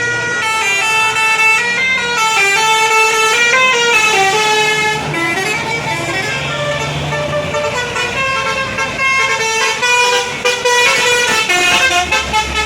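Bus fitted with a telolet 'basuri' musical horn playing a quick tune of short notes that step up and down in pitch.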